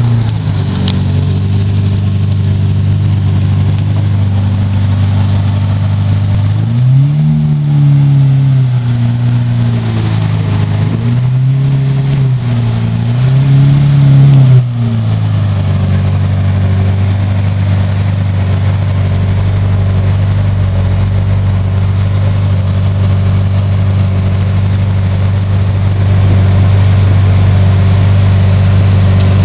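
Lamborghini Murciélago Roadster's V12 idling, blipped three times about a third of the way through, each rev rising and falling in pitch, then settling back to a steady idle.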